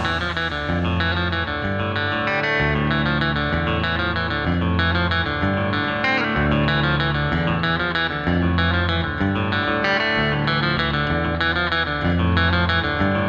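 Instrumental passage of a rock song: a run of picked electric guitar notes over held bass notes, with no singing.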